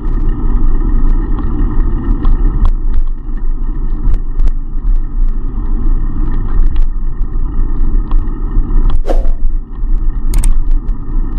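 Steady low rumble of wind and road noise on a bicycle-mounted action camera riding along a city street, with occasional sharp ticks and knocks.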